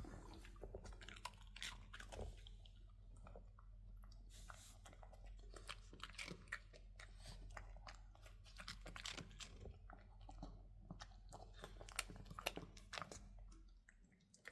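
Shih Tzu chewing crunchy food, a faint run of irregular crunches and bites. A steady low hum runs underneath and stops near the end.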